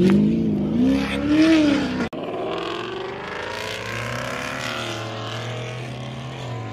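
Car exhausts: an engine revved up and down in quick blips for about two seconds, then, after an abrupt cut, a steady low exhaust drone of a car rolling along at low revs, its pitch creeping slightly upward.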